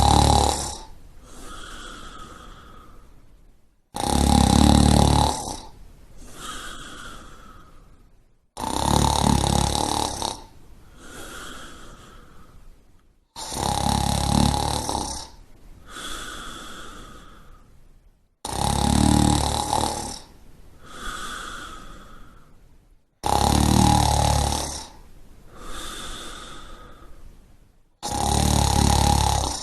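A sleeping person snoring in a steady rhythm, about one breath every four and a half to five seconds, seven loud snores in all. Each loud, low in-breath snore lasts about a second and a half and is followed by a softer, higher out-breath.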